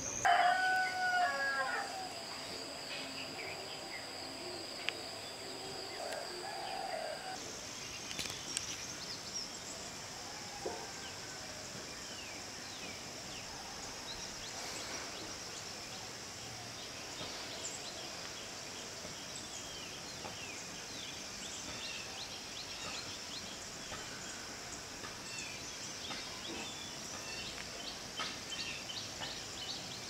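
A rooster crows once right at the start. After that a steady high insect drone carries on, with many short, faint, high bird chirps scattered through it.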